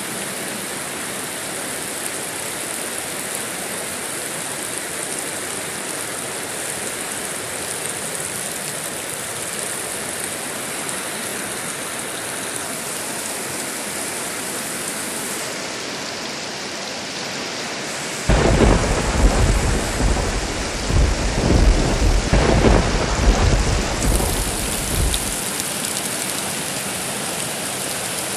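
Steady rain hissing, then about two-thirds of the way through a sudden thunderclap that cracks and rumbles deeply for about seven seconds before the rain carries on alone.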